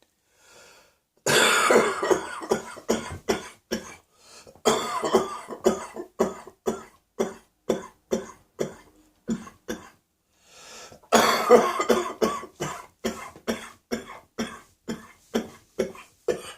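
A person's coughing fits: three bouts, about a second in, near five seconds and about eleven seconds in, each opening with a hard cough and trailing off into a quick run of shorter coughs. The cougher describes it as a cough descending into the chest while still giving a lot of pain in the throat.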